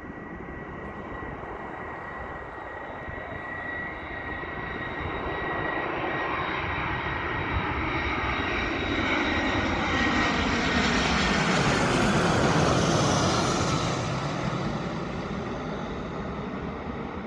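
Airbus A340-300's four CFM56 jet engines on landing approach, passing overhead. The engine noise builds to a peak about twelve seconds in and then fades, with a high fan whine that drops in pitch as the aircraft goes by.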